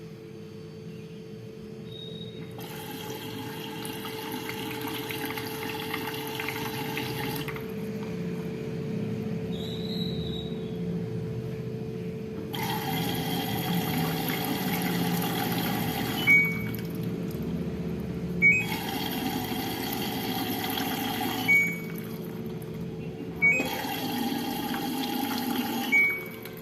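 Washing machine water inlet filling the drum. The water rushes in four bursts over a steady hum, and several bursts start or stop with a short sharp knock as the solenoid inlet valve opens or shuts.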